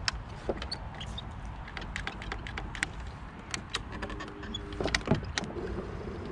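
Scattered light clicks and knocks of gear being handled in a plastic kayak, over faint water noise. A faint steady hum comes in about four seconds in.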